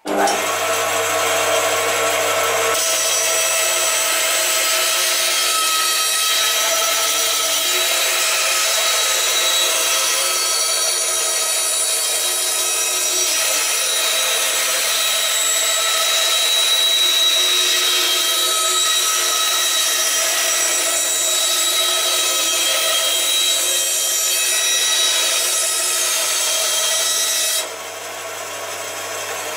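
Band saw with a half-inch blade cutting a freehand curve in plywood: a steady run of motor and blade over the hiss of the cut. The sound drops quieter near the end.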